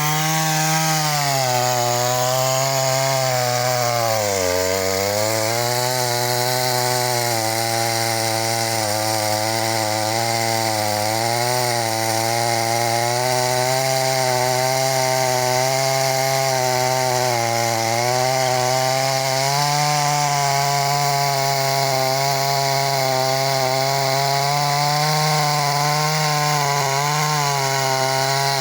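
Chainsaw running at high revs while sawing through wood, its engine pitch sagging briefly about four seconds in and then holding fairly steady with small wavers as it cuts.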